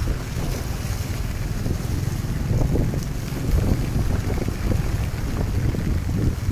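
Wind buffeting the microphone: a steady low rumble that rises and falls unevenly.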